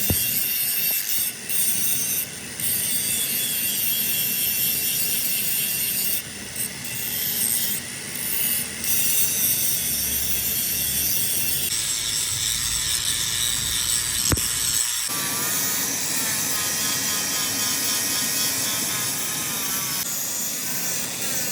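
Workshop machining noise, a steady high hiss and scrape, that changes abruptly about 12, 15 and 20 seconds in, with a single sharp click a little after 14 seconds.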